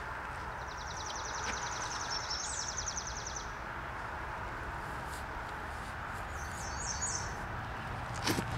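Outdoor background hiss with a bird's rapid high trill lasting about three seconds, then a few short high chirps about seven seconds in.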